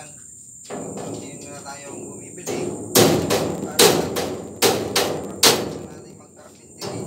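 Sharp knocks on the steel frame of a pig farrowing pen as a clamp part is worked into place. About five blows come roughly one a second, starting about three seconds in.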